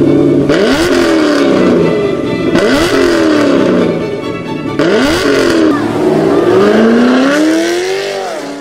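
Chevrolet Camaro engine revving hard several times as the car drives off, the pitch jumping up and sliding back down each time. The sound cuts off suddenly at the end.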